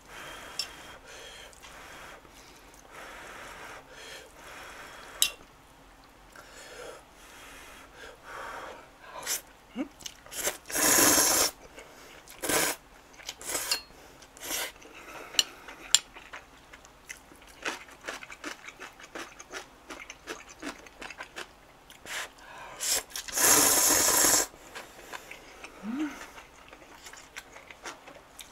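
Eating instant ramen noodles close to the microphone: two loud slurps about a second long, one about 11 seconds in and one about 23 seconds in. Between them come soft chewing and light clicks of chopsticks against the bowl.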